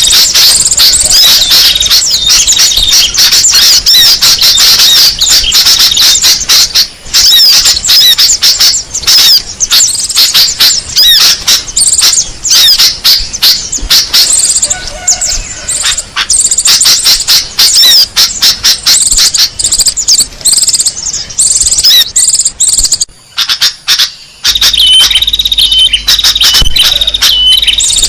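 Small songbirds chirping and twittering densely and rapidly, a recorded bird-lure call. About 23 seconds in it breaks off for a moment, then a steadier high, ringing call starts.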